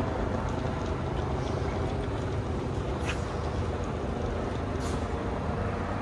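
City street ambience: a steady low rumble of traffic, with a couple of faint clicks about three and five seconds in.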